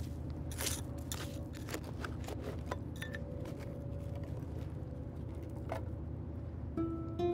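Hands scraping and digging through gritty sand and small stones, with several sharp scrapes in the first couple of seconds and sparser ones after, over a steady low rumble. Plucked-string music begins near the end.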